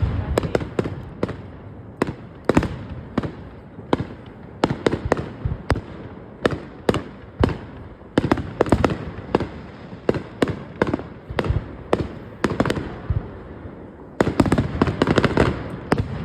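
Fireworks going off in quick succession: many sharp bangs and cracks, several a second, with a dense run of rapid crackling near the end.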